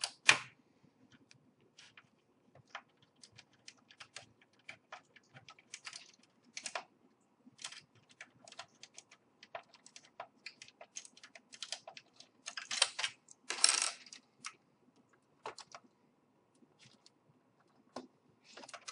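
Screwdriver working the black screws out of an Xbox 360 Slim's chassis: scattered light clicks and short scrapes of metal on metal and plastic, with small metallic clinks. Denser, louder rasping comes around the middle and again a little past two-thirds through.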